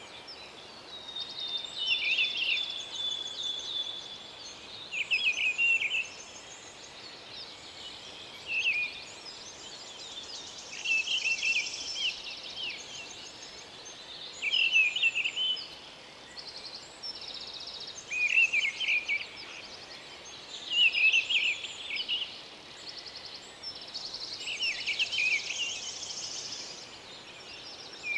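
Birds singing: a short chirping phrase repeats every few seconds over softer, higher twittering.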